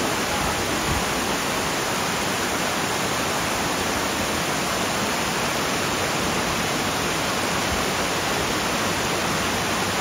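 Shallow stream rushing over rocks and pebbles: a steady, even rush of whitewater.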